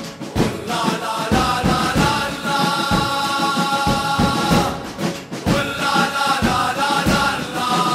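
Football ultras chant: a group of supporters singing a melody together in unison over a steady drum beat, with a brief break about five seconds in.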